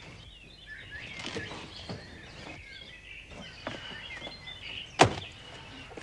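Birds chirping with a few light knocks and scuffs. About five seconds in comes one sharp, loud thud: a person landing on the ground after dropping from a window.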